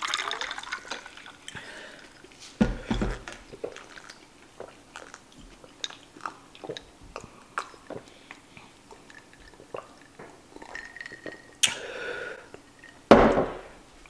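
Water pouring over ice into a drinking glass, tailing off, then a knock about three seconds in. Many small clicks of ice in the glass and swallows follow as the water is drunk, with two louder noisy bursts near the end.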